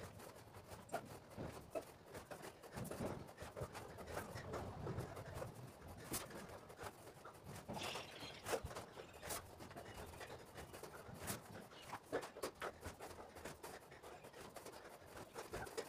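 Faint, scattered taps and scuffs of hands and feet against bricks and a hard stone floor, with a person's breathing, as he moves through a bodyweight exercise.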